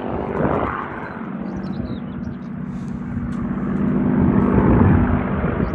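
Piston-engined Second World War fighter flying past with a steady propeller drone. It grows louder to a peak about five seconds in.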